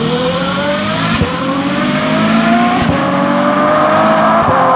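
Ferrari F12 Berlinetta's naturally aspirated V12 through an IPE Innotech exhaust, accelerating hard as the car pulls away, its rising howl broken by quick upshifts about a second in, near three seconds and near the end.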